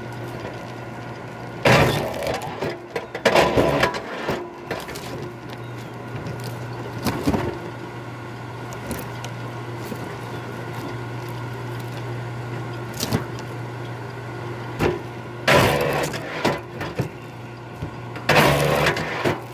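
K-10 log splitter's motor humming steadily while a log is split on its wedge, with loud cracks and clatters of wood splitting apart: about two seconds in, again near four and seven seconds, and twice near the end.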